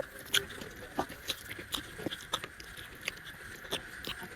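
Close-miked chewing of buffalo meat: irregular sharp mouth clicks and smacks, two or three a second.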